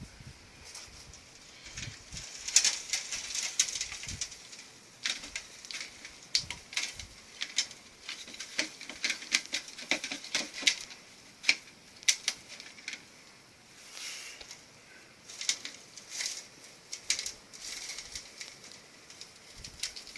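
Irregular scratching, rustling and light tapping from a hand rummaging in a container of feeder crickets, trying to catch them, in quick clusters with short pauses.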